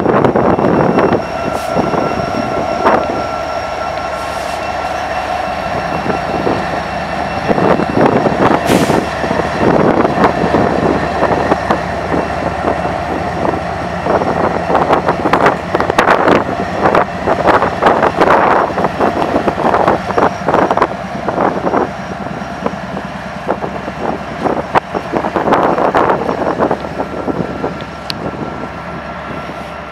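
Freight train passing close by: an EMD SD70ACe and a GE ES44AC diesel locomotive go past, then covered hopper cars roll by with rapid clicking and clacking of wheels over the rail joints. A steady high-pitched ring runs under it.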